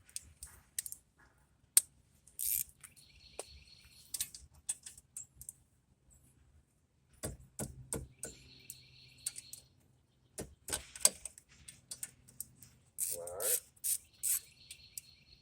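Ratchet wrench clicking in quick runs of about a second, three times, with scattered clinks of metal tools, as a 14 mm socket works a brake caliper bolt loose. A short squeak comes near the end.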